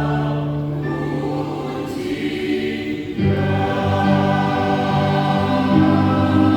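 Church choir singing long held chords in harmony, moving to a new, fuller chord about three seconds in.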